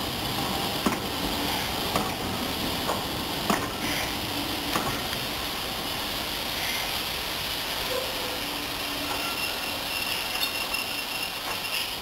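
A steam-hauled train of coaches rolling slowly away along the platform: a steady rumble of wheels on rails, with a few sharp clanks in the first five seconds.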